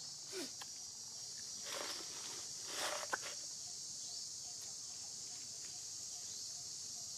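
Steady high-pitched insect chorus, with a few brief rustles and a sharp click about three seconds in.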